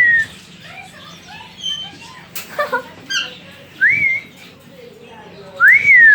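Pet-store parrots whistling: three clear whistles that rise and fall, at the start, about four seconds in and near the end, with a quick run of chirps and a sharp click in between.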